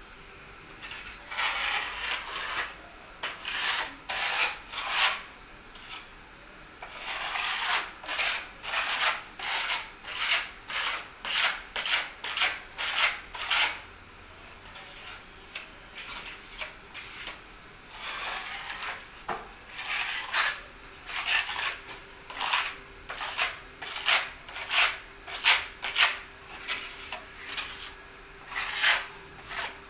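Steel wall-finishing blade scraping and spreading a white coat over a rough cement wall. The strokes come in runs, about one or two a second, with pauses of a few seconds between runs.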